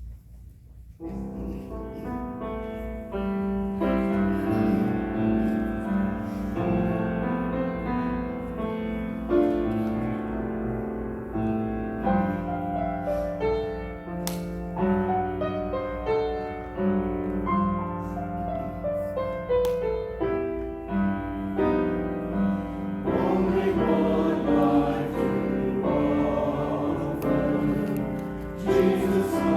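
Church music: a choir singing with piano accompaniment, with sustained notes and changing chords. It begins about a second in.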